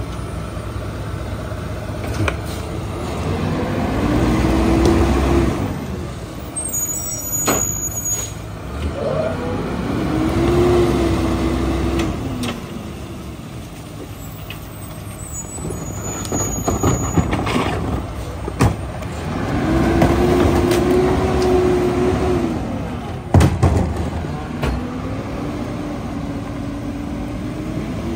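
New Way rear-loader garbage truck's engine revving up and holding while the hydraulic packer cycles, then dropping back to idle, four times over, as the truck packs out a near-full load. A few sharp knocks come between the cycles.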